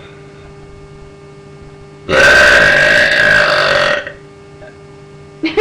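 A person's long, loud, deliberate burp, lasting about two seconds from about two seconds in, held at a steady pitch.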